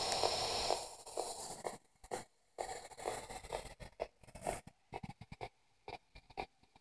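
P-SB7 spirit box sweeping the radio band: a dense hiss of static at first, then from about two seconds in a rapid, irregular chopping of short blips of static and noise with silent gaps between them.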